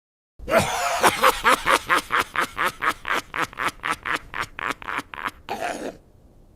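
High-pitched, shrill evil laugh of a fantasy dwarf character: a fast run of about four to five 'ha' pulses a second, ending in one longer drawn-out note, followed by a short fading echo.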